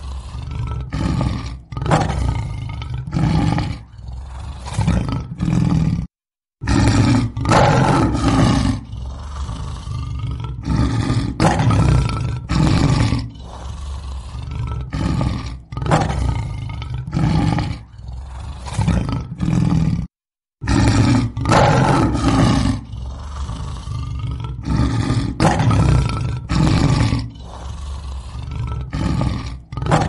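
Lion roaring again and again, one call after another, from a looped recording that drops out to total silence for a split second twice, about six and twenty seconds in.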